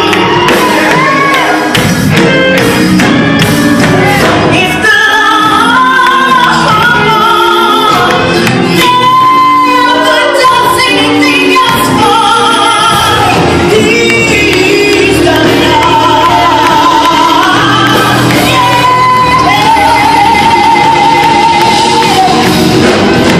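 Church worship music: voices singing a worship song over instrumental accompaniment, with long held sung notes.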